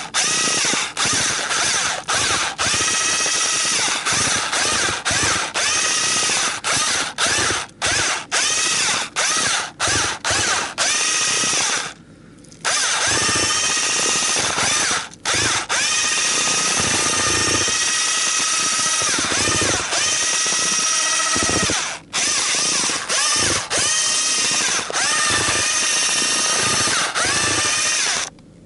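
Electric drill with a mixing paddle stirring groundbait, its motor whine dipping and rising under load. It is stopped and restarted many times in quick succession, pauses about twelve seconds in, then runs in long stretches until it stops just before the end.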